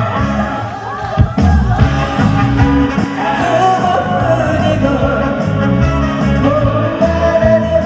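A woman singing a trot song live through a PA system over an amplified backing track with a steady bass and drum beat.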